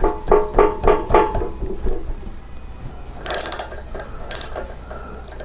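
Ratchet wrench with a 6 mm hex bit clicking in short runs while loosening the front axle pinch bolts: a quick series of strokes, about four a second, at the start, then sharper bursts about three and four seconds in.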